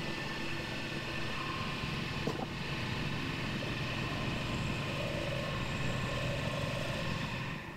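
Milling head of a Shoptask XMTC Gold lathe-mill combo running, with an end mill facing the bosses of a small bronze casting: a steady machine whir that cuts off near the end.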